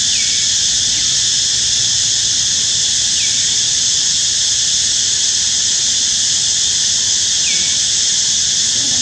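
A steady, high-pitched insect chorus drones without a break. Three short falling chirps cut through it: one at the start, one about three seconds in, and one near the end.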